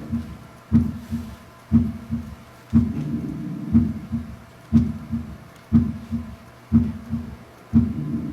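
Recorded heartbeat with a third heart sound (S3 gallop): low thuds in a three-part "tuntata" rhythm, about one beat a second. The extra sound falls in early diastole during rapid ventricular filling.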